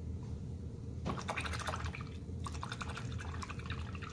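Paintbrush swished and tapped in a water jar: quick, irregular splashy clicks starting about a second in, with a short pause partway through.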